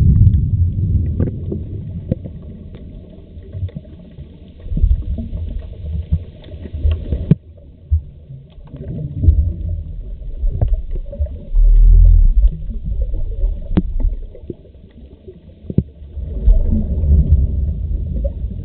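Underwater sound heard through a camera housing on a scuba dive: low rumbling bursts of a diver's exhaled regulator bubbles every few seconds, with scattered sharp clicks.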